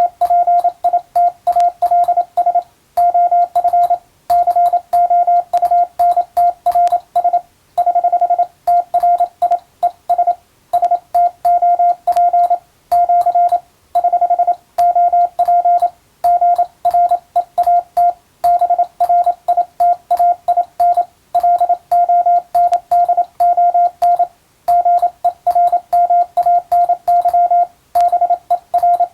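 Morse code (CW) tone: a single steady beep keyed rapidly into dots and dashes, with brief pauses between words, spelling out English-text telegram practice messages for receiving practice.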